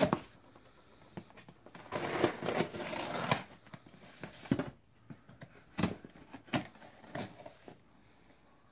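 Folding knife slitting packing tape along a cardboard box: a scratchy tearing noise lasting about a second and a half, then scattered taps and knocks as the box is turned and cut again.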